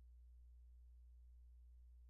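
Near silence with a faint, steady low hum.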